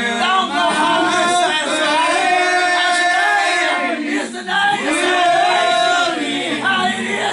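Church congregation singing together, voices holding long notes.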